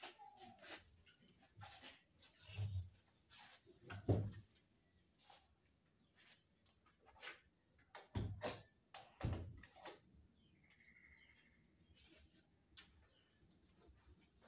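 Steady high-pitched insect chirring, with a few soft low thumps and faint clicks scattered through, the loudest thump about four seconds in.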